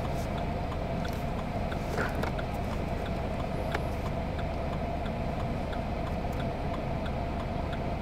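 Steady low hum of a car's engine idling, heard from inside the car, with a faint, even ticking.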